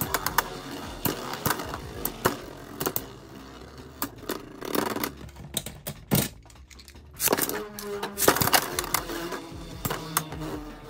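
Two Beyblade X tops spinning and clashing in a stadium: irregular sharp plastic-and-metal clacks of collisions, densest at the start and again in a loud flurry about three-quarters of the way through, over a buzzing whir from the spinning tops. Background music plays underneath.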